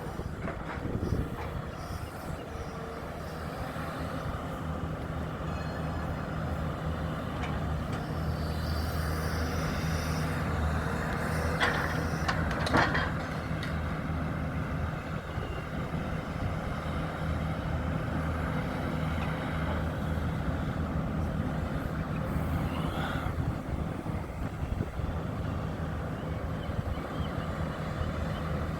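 Heavy engine running steadily, with a couple of sharp clanks about halfway through and another later on.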